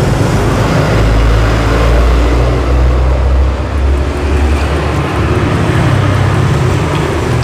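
Road traffic: a vehicle passing close by with a loud deep rumble that fades about four seconds in, over a steady noise of traffic.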